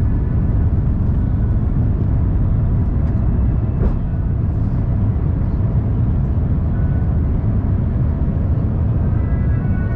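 Cabin noise inside an Airbus A350-900 on approach: a steady low rumble of airflow and engines, with a single brief knock about four seconds in.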